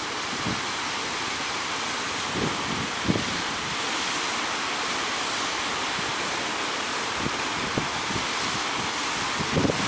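Steady hiss of surf and breaking waves, with short low thumps of wind buffeting the microphone now and then, more of them near the end.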